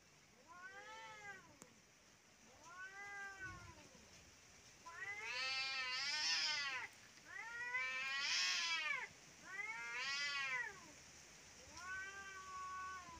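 Cats yowling at each other in a fight standoff: about six long, drawn-out yowls, each rising and then falling in pitch. The calls are loudest in the middle.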